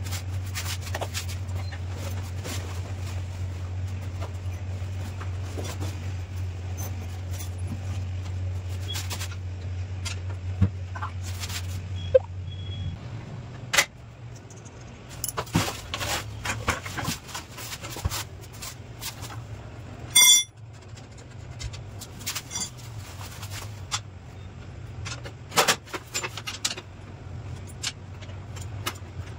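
Luggage and gear being handled and unloaded: scattered knocks, clicks and rattles, over a steady low hum that stops about thirteen seconds in. A short, loud beep about twenty seconds in.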